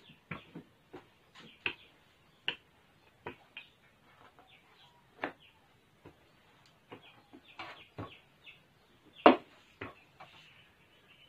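Wooden rolling pin rolling out dough on a floured wooden table, with short irregular knocks and clacks, one louder knock about nine seconds in.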